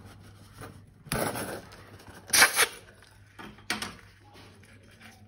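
Hands handling balloons and slime: three short bursts of rustling and squishing, the loudest about halfway through, the last beginning with a sharp click.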